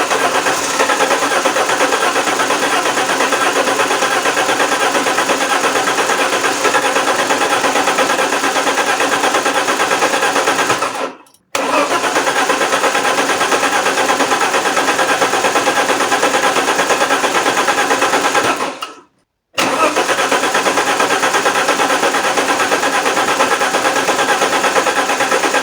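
Alfa Romeo 164's 2.0-litre V6 turbo Busso engine being cranked on the starter in three long attempts, about eleven, seven and six seconds, each stopped abruptly. It wants to start but never catches: a crank-no-start fault.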